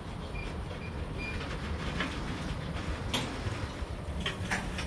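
Freight train tank cars rolling slowly along the track, a steady low rumble of wheels on rail. A few short, sharp metallic clanks and squeaks cut through it, the loudest about three seconds in and two more near the end.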